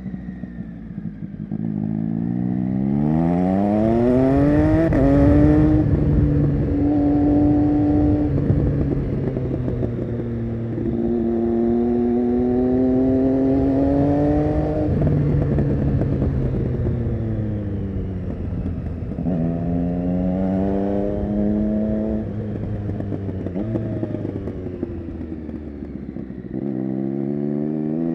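Triumph Street Triple 675 Rx inline-three through an SC-Project Conic exhaust, accelerating hard out of hairpins several times with quick upshifts. In between the rider rolls off the throttle and the exhaust pops and crackles on the overrun.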